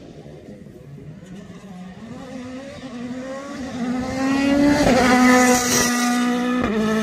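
Rally car engine accelerating hard, rising in pitch and getting louder over the first five seconds, then held at high revs with a short break in the note about five seconds in.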